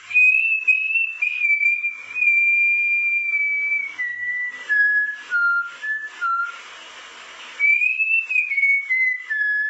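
A man whistling a slow tune through pursed lips: two phrases of long held notes that step downward, with a pause of about a second between them.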